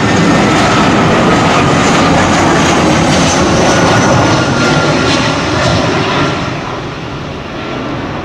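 Twin-engine jet airliner on final approach, flying low and flaring to land: a steady engine roar with a faint high whine, easing off a little after about six seconds.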